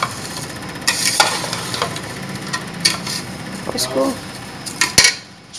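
Metal spoon stirring sugar through cooked rice in a stainless steel pot, with irregular scrapes and clinks against the pot, and a sharp knock about five seconds in.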